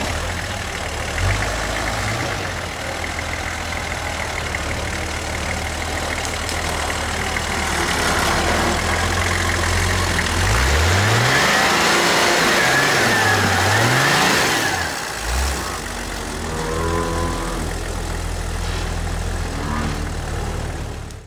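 Custom Toyota Land Cruiser rock crawler's engine running under load as it crawls over rocks, revved up and down several times about halfway through, the note rising and falling with each blip. The sound cuts off suddenly at the end.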